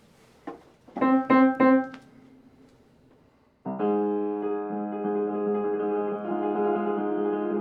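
Piano: the same chord struck three times in quick succession about a second in, ringing away. After a short pause, steady chordal playing begins just past the halfway point and carries on.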